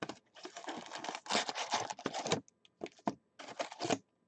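Trading-card packs rustling and scraping against their cardboard box as they are handled and pulled out, in several short stretches, loudest a little over a second in.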